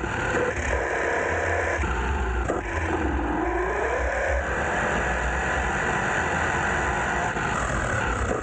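Radio-controlled car's electric motor whining as it is driven, the pitch sliding down and back up several times as it slows and speeds up, over a steady rushing noise.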